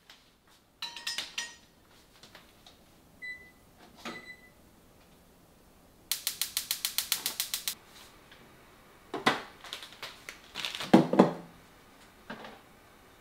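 Kitchen handling sounds: a few light clinks, two of them ringing briefly, then a brisk run of even clicks lasting about a second and a half midway. Near the end come heavier knocks and clatter, the loudest a dull thud.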